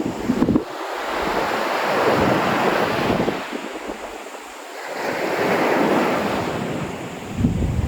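Sea waves washing onto a beach, swelling and fading twice, with wind buffeting the microphone in low rumbles near the start and near the end.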